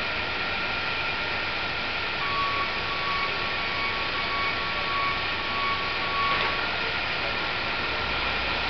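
Steady street traffic noise with a city transit bus idling at its stop. A steady high beep tone joins about two seconds in and lasts about four seconds.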